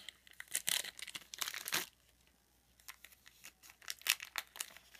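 Shiny foil trading-card pack wrapper crinkled and torn open by hand, in two spells of crackling with a pause of about a second between them.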